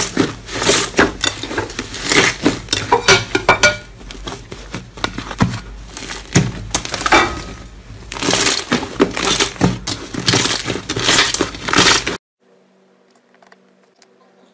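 Thick green slime being squeezed and kneaded by hand, a dense run of wet crackles and pops as air is pressed out of it. It stops abruptly about twelve seconds in, leaving only a faint hum.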